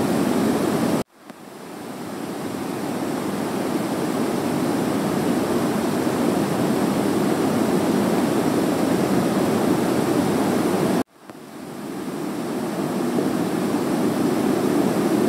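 Steady hiss of room tone that cuts out abruptly twice, about a second in and again near the end, each time swelling back up over a few seconds.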